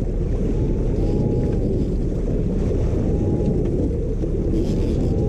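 Steady low rumble of a boat underway at trolling speed, with a faint wavering whine that comes and goes every second or two.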